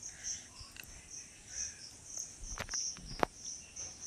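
Insects chirping in a steady high pulsing rhythm, about two to three chirps a second, with a few sharp clicks about two and a half and three seconds in.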